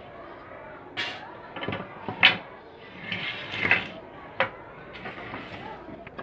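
Wooden frame pieces being handled and set down on a concrete floor: about four sharp wooden knocks, the loudest a little over two seconds in.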